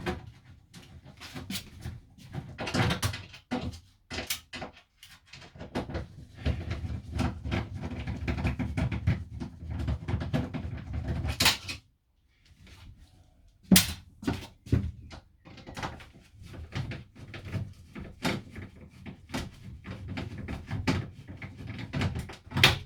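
Irregular knocks, bumps and scraping of wooden interior fittings being worked loose and pulled apart by hand inside a camper van, with sharp single knocks scattered throughout.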